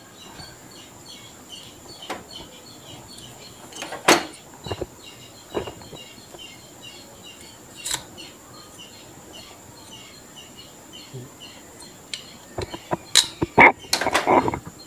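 Sharp clicks and knocks from the parts of a disassembled electric fan motor being handled, the rotor with its shaft and the motor housing, a few seconds apart, with the strongest about four seconds in and a quick cluster of clatter near the end. Behind them, small high chirps repeat steadily, about two or three a second.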